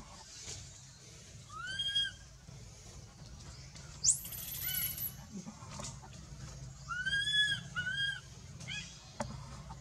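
Baby macaque giving short, arched, rising-and-falling cries, one near the start and a quick run of three or four near the end, with a brief very high shrill squeal about four seconds in: distress calls of a frightened infant calling for its mother.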